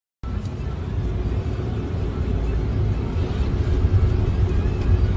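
Loud, steady low rumble of storm-force wind buffeting the microphone, starting abruptly at a cut just after the start.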